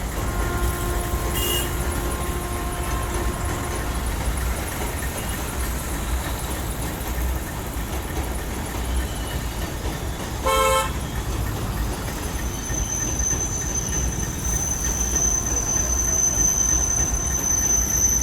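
Road traffic with vehicle horns over a steady low rumble: one horn is held for a few seconds at the start, and a short honk comes about ten seconds in. A thin, high, steady whine joins in over the last third.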